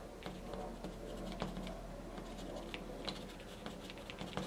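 Edge of a piece of card scratching and scraping across wet watercolour paper, lifting paint out to give rock texture: a run of small, irregular dry scratches and ticks.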